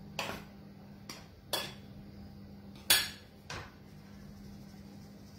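Hand sieve being knocked against a plastic mixing bowl to sift flour: five short, uneven taps, the loudest about three seconds in.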